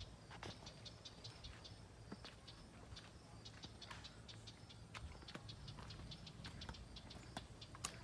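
Faint footsteps on pavement: scattered light clicks and ticks, several a second and unevenly spaced, over a low steady rumble.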